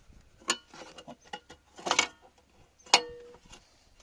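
Sheet-metal kick plate over a car's ECU being worked loose and pulled off, with a few metal clanks and rattles. The loudest clank comes near the end and rings briefly.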